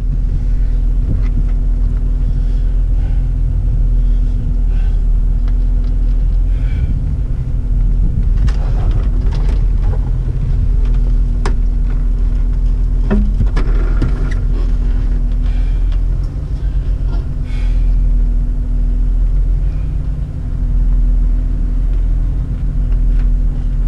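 Engine of a stopped off-road vehicle idling steadily, heard from inside the cab, with a constant low hum.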